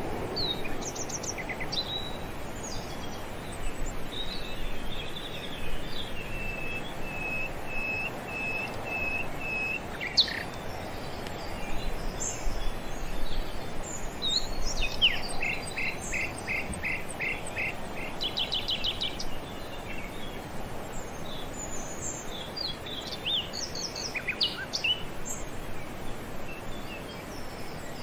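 Wild birds calling and chirping over steady background noise: a string of about eight even, repeated notes, then later another run of short notes and a quick trill, with scattered single chirps between.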